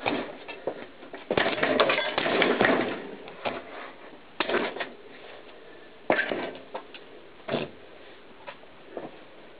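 Plastic audio cassette shells cracking and crunching under a knobby mountain bike tyre: a dense stretch of crackling about a second in, then single sharp cracks and clicks every second or so.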